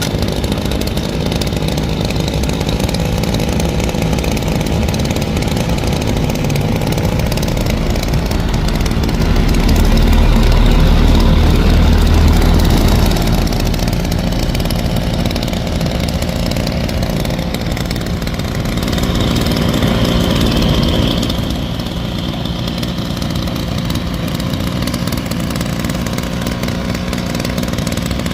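Hyundai 826 grass cutter's small engine running steadily, revved up twice: a longer rise about a third of the way in and a shorter one past the middle.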